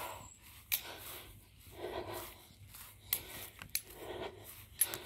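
Quiet rustling and rubbing with a few short, sharp clicks: phone handling noise and footsteps of someone walking across a grass lawn while filming.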